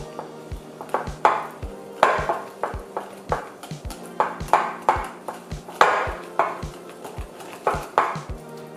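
Wire whisk beating pancake batter in a glass bowl: a run of quick, regular knocks and clinks against the glass. Background music with ringing notes plays over it.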